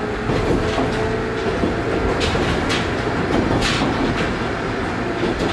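JR West Series 103 electric commuter train running, heard inside the passenger car: a steady rumble of wheels on track with several sharp clacks over rail joints.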